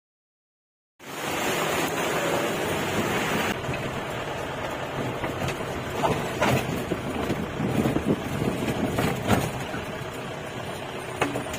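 Off-road jeep driving over a rough trail: a steady rushing of engine and road noise starts suddenly about a second in, with several sharp knocks and rattles from the bumpy ride in the second half.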